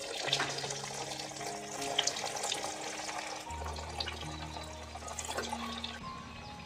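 Slices of steamed gram-flour and coriander vadi deep-frying in hot oil in an iron kadhai: a dense sizzle with sharp crackles and pops, starting suddenly as the pieces go into the oil.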